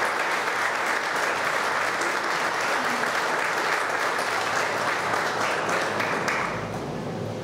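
Audience applauding, steady dense clapping that dies away about six seconds in.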